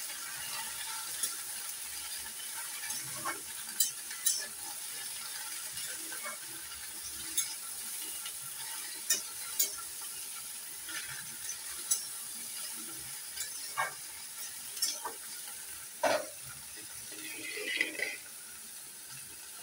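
Chopped vegetables frying in oil in a metal kadai with a steady sizzle, while a metal spatula stirs and turns them, scraping and clinking against the pan at irregular moments.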